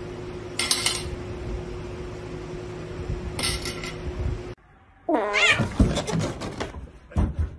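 Rings dropped on a table clatter twice, a few seconds apart, over a steady low hum. Then, about five seconds in, a cat gives a loud meow that falls in pitch, followed by a couple of shorter sounds.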